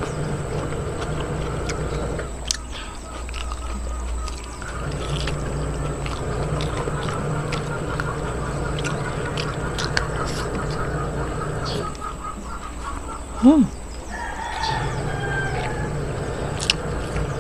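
Chickens calling: a sharp call that rises and falls near the end, then a rooster crowing for about a second, over a steady low hum.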